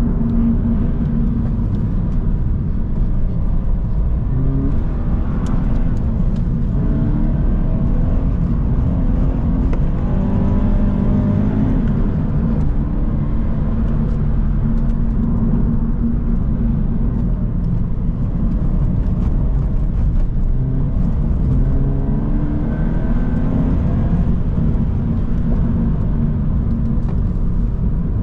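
Subaru BRZ's flat-four boxer engine heard from inside the cabin, repeatedly revving up and easing off as the car accelerates out of bends and lifts for the next, over steady road and tyre rumble.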